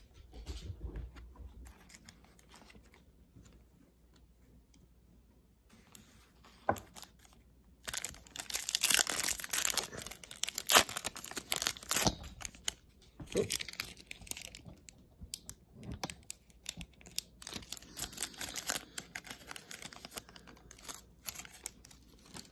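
A foil trading-card pack wrapper being torn open and crinkled by hand. It starts with faint handling, and the tearing and crackling are loudest about a third of the way in. Scattered crinkles of the wrapper follow.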